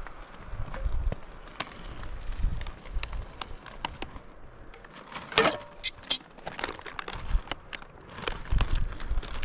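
Foil freeze-dried meal pouch crinkling and crackling as water is poured into it from a camp cooking pot and the pouch is then folded shut, with a denser burst of crackling about five seconds in. Low wind rumble lies underneath.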